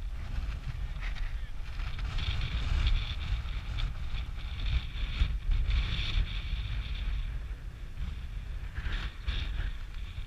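Wind buffeting the camera microphone as a steady low rumble, with fainter higher-pitched sounds in the middle and again near the end, likely players shouting across the pitch.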